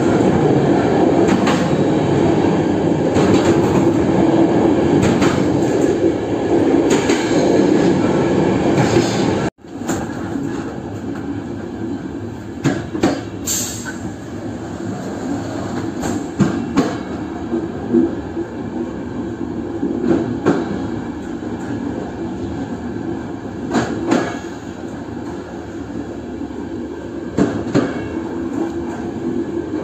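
Passenger train running on the track, heard from on board: a loud, dense rumble of wheels on rails. About nine seconds in, it breaks off for an instant and comes back quieter, with sharp clicks of wheels over rail joints every second or two and a brief high squeal soon after.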